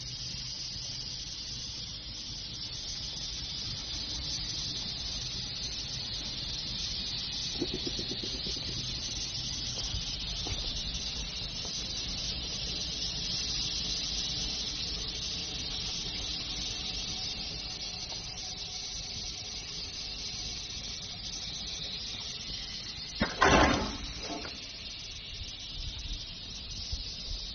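CNC cutting machine running on test: a steady high hiss over a low hum. A loud, rough noise about 23 seconds in lasts under a second, with a smaller one just after.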